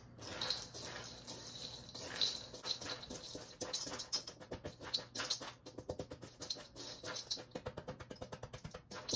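A silicone spatula stirs seasoned pumpkin seeds in a stainless steel mixing bowl, with many quick scrapes and clicks of seeds and spatula against the metal. Quiet background music plays under it.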